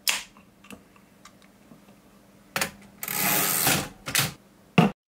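A drink can's ring pull clicks open. Then, after a pause, comes a short rasp and a couple of sharp clacks from a typewriter's carriage return lever.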